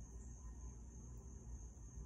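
Quiet background noise: a steady high-pitched whine over a low rumble.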